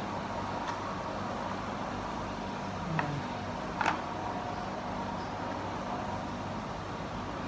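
Steady background hum and noise, with two light knocks on a plastic cutting board about three and four seconds in.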